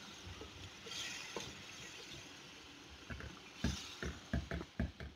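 Wooden spatula stirring chickpea gravy in a nonstick pan over a faint simmering hiss; in the second half a quick run of sharp taps and knocks as the spatula hits the pan.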